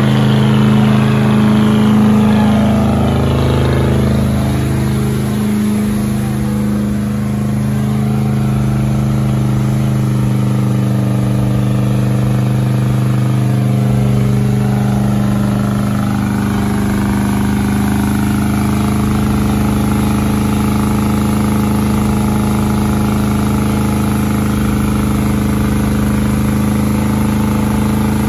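Diesel pickup truck engine held at steady high revs through a burnout, its rear tyres spinning and smoking on the pavement. The engine note stays at an even pitch throughout, with little rise or fall.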